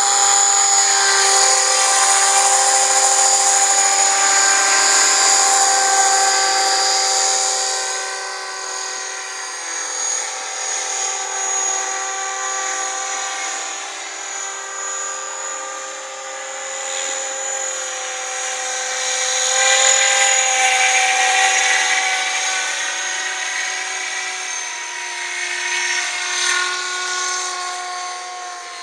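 Electric RC model helicopter in flight, a scale Huey built on a T-Rex 500, with its motor and drive whining in several steady high tones over the rotor noise. It is louder for the first several seconds, drops back, then swells again about twenty seconds in as the pitch shifts slightly.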